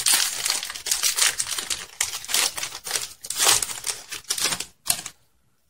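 Foil wrapper of a Pokémon TCG booster pack crinkling and tearing as it is ripped open by hand and the cards are slid out. The crackling is irregular and stops about five seconds in.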